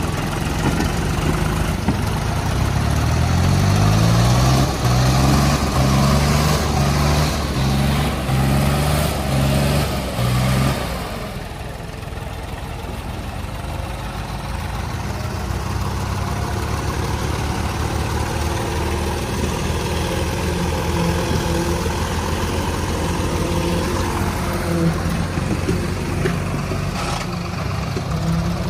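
Diesel tractor engines, a John Deere and a Sonalika, working hard under full load in a tractor tug-of-war. The engine note surges up and down about once a second for the first ten seconds, then drops at about eleven seconds to a quieter, steadier labouring run.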